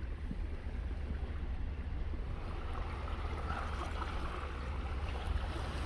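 Truck driving through shallow floodwater: a steady low rumble with an even wash of water around the tyres.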